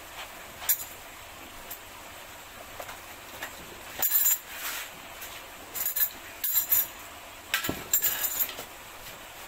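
Scuba gear being handled: a buoyancy compensator and tank with its valve clinking and rattling in short bursts, once early and then in several clusters from about four seconds in to near the end.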